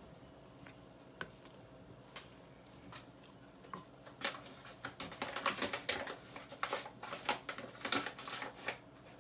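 Wooden spoon stirring soft, sticky bread dough in a glass bowl: a few light knocks at first, then a busy run of stirring and scraping from about four seconds in until near the end.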